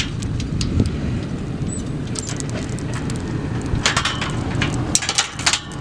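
Vehicle engine running steadily with a low rumble. A cluster of sharp clicks and knocks comes near the end.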